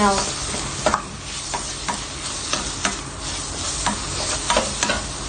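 Onion, tomato and chili with ground spices sizzling in a steel pan while a spatula stirs and scrapes through it, with sharp scrapes and knocks against the pan every half second to a second. The spice powders are being fried into the onion-tomato base.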